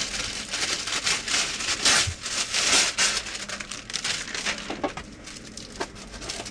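A sheet of non-stick baking paper crinkling and rustling as it is handled and shaken out, loudest about two to three seconds in.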